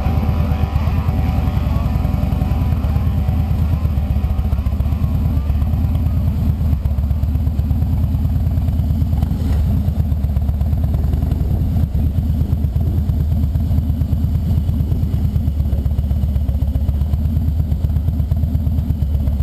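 Harley-Davidson V-twin motorcycle engine running steadily on the road, a dense low beat of firing pulses.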